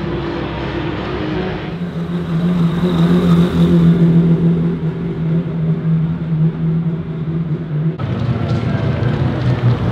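Mazda RX-7 rotary engines at low revs. For the first two seconds several cars run at a distance. Then one RX-7 drives slowly with a steady, even drone, and about eight seconds in there is an abrupt change to another RX-7's rotary engine, lower and rougher.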